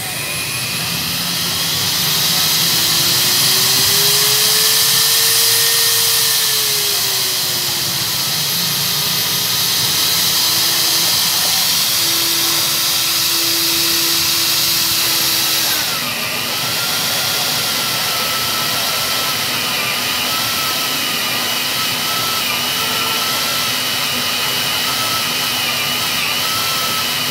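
TCVN MD50 magnetic drill's electric motor spinning up and running, its whine rising and falling in pitch as the speed knob is turned. About sixteen seconds in, the sound dips briefly and the pitch drops, then it runs steadily on.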